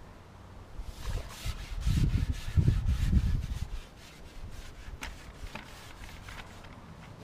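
Rubbing and scraping handling noise as a carbon fishing pole is picked up and worked over the seatbox close to the camera, loud for about three seconds from a second in, then a few light clicks.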